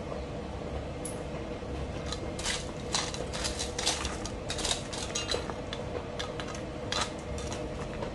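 Hand trowel scraping and clinking against gravel and stones in quick irregular strokes, starting about two seconds in.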